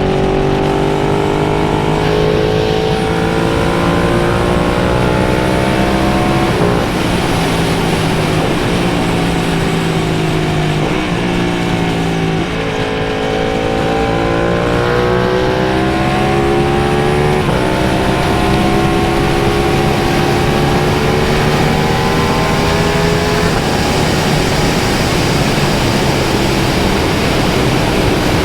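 Motorcycle engine running on the road, its pitch climbing and dropping back with gear changes every few seconds, over a steady rush of wind.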